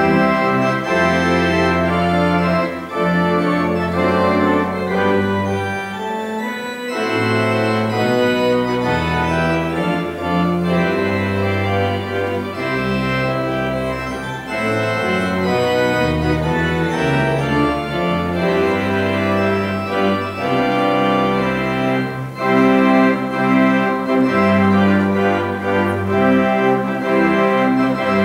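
Church pipe organ playing the wedding recessional: full, sustained chords over a bass line that moves from note to note.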